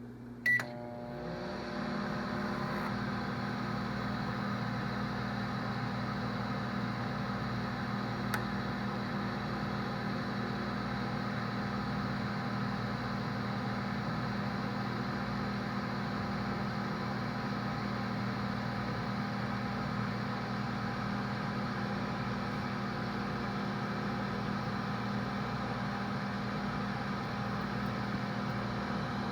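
Microwave oven running: after a brief sharp sound about half a second in, its steady hum builds over the next second or so and then holds level.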